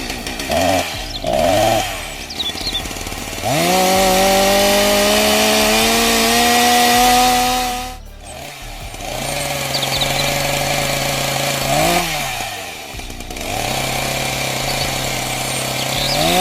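Chainsaw engine revving. About three and a half seconds in, it goes up to full throttle and holds there for about four seconds, as when cutting through a log, then drops back. After that it runs at a lower steady speed with two short revs, one near twelve seconds and one near the end.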